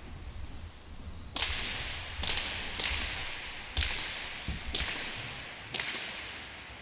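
Leather hand-pelota ball struck by hand and smacking off the walls of an enclosed frontón court during a rally. There are six sharp smacks, each under a second apart, and each rings out in the court's echo.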